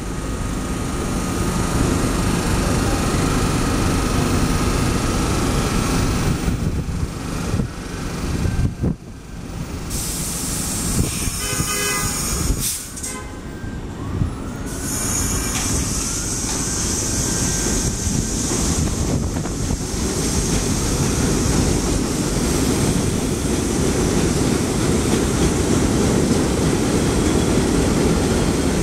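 Bombardier R62A 7-line subway train running along the elevated track through the station: a steady loud rumble of steel wheels on rail and traction motors, easing briefly around the middle before building again.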